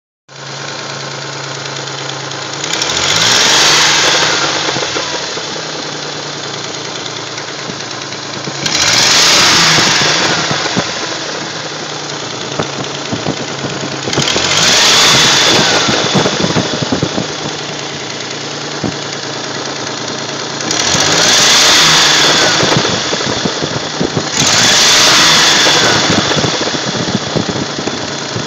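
1979 Datsun 280ZX's inline-six engine idling and revved up five times, each rev lasting about two seconds before it falls back to idle. A strange clacking comes in while it revs and a gurgling as it returns to idle, both from beneath the front end of the valve cover.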